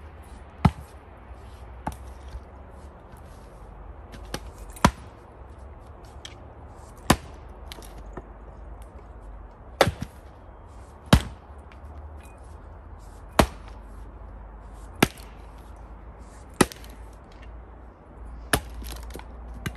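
Axe striking and splitting firewood: about a dozen sharp, irregularly spaced blows, nine of them loud, roughly one every one to two seconds.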